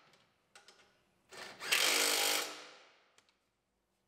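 Cordless power tool running in one short burst about a second and a half in, then spinning down over about a second, as it runs down the bumper bracket bolts on the truck frame. A few light clicks come before it.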